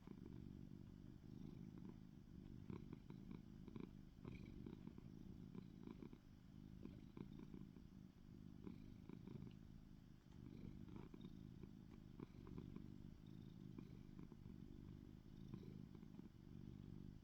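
A cat purring quietly and steadily, with faint small ticks now and then over it.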